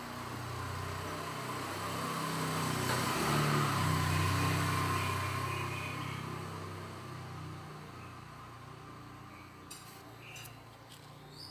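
A motor vehicle passing by: its engine and road noise rise to a peak about four seconds in, then slowly fade. A few faint clicks near the end.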